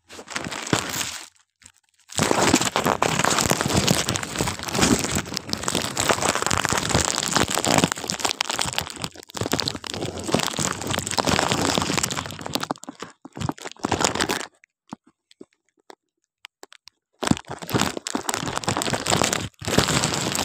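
Crinkling and crackling of plastic rubbing against the phone's microphone as the phone is handled, loud and close, in two long stretches that cut off abruptly to silence about two seconds in, about fourteen and a half seconds in, and again for a moment near the end.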